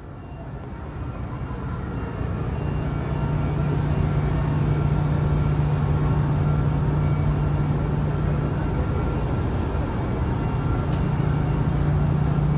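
Steady low drone of a ship's diesel engine running, with a strong, even hum that grows louder over the first few seconds and then holds.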